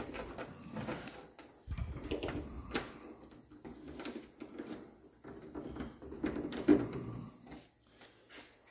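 Light metal clicks and rattles of a hood pin and its ring clip being turned and fitted through the pin's scuff plate on a fiberglass hood, with a louder knock about two-thirds of the way through.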